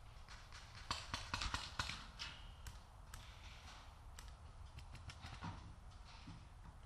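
Paintball markers firing: sharp pops in quick strings, thickest between about one and two seconds in, then scattered single shots.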